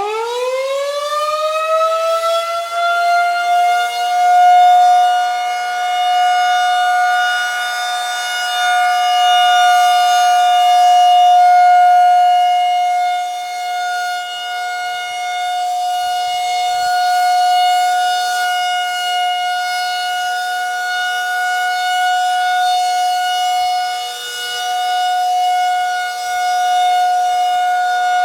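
Outdoor warning siren winding up, its pitch rising over the first few seconds, then holding one steady, loud tone.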